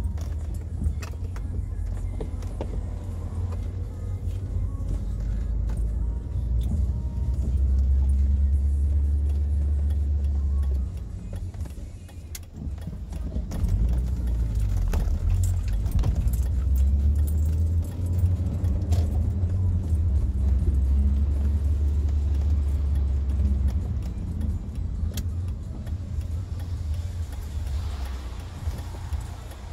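Inside a car in heavy rain: the low rumble of the car running, with scattered sharp ticks of rain striking the body and windows. The rumble eases about twelve seconds in and then returns.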